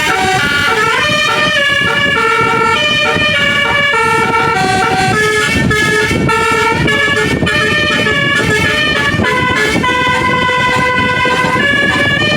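Indonesian bus 'telolet' musical air horn playing a tune: a run of held notes stepping up and down, several tones sounding together as a chord, over a continuous low rumble.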